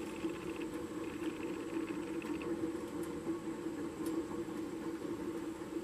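Front wheel of a 2010 Harley-Davidson Road King spinning freely with the brake calipers off, giving a steady whirring hum with a faint repeating swish in the first half. The owner suspects the wheel bearings are going out.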